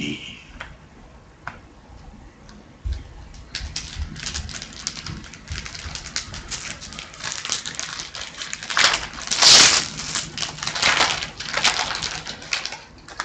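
A foil trading-card pack wrapper crinkling as it is handled and torn open: a run of quick crackles and clicks, loudest around nine to ten seconds in.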